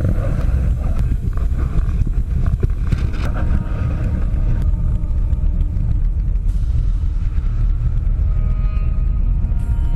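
Wind buffeting an action camera's microphone: a steady low rumble.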